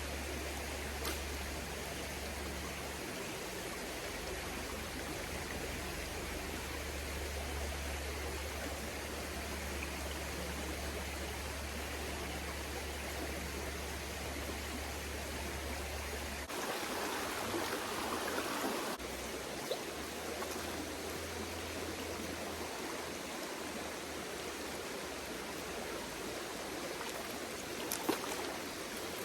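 Flowing stream water rushing over a riffle, steady throughout, with a louder stretch of water noise lasting a couple of seconds a little past the middle.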